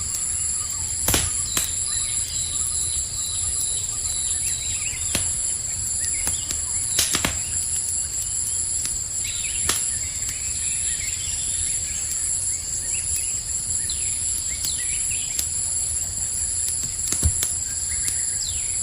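A campfire crackling, with a handful of sharp pops, over a steady high-pitched chorus of night insects.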